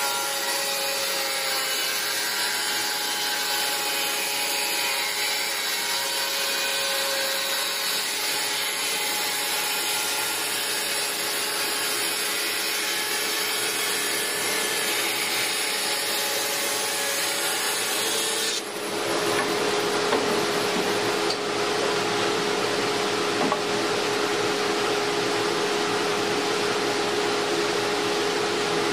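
Dust collector running steadily while a Baileigh WBS-14 14-inch bandsaw rips a thin strip from a board of hard maple. The steady noise is mostly the dust collector; the bandsaw itself is very quiet. The sound dips briefly and changes a little about two-thirds of the way through.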